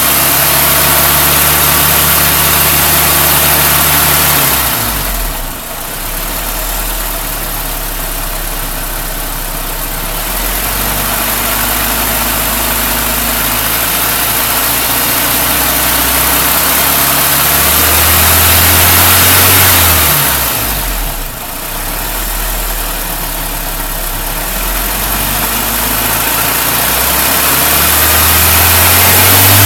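Warmed-up car engine running at idle with a vacuum gauge teed into the intake, its speed rising and falling back a few times.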